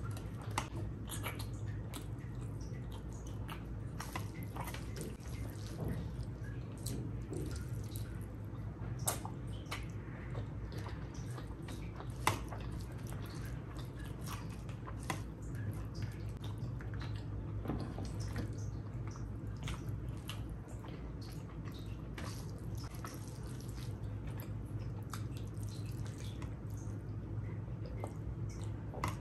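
Close-miked messy eating of rice and curry: wet squelching, sticky lip smacks and chewing, with many scattered short clicks over a steady low hum.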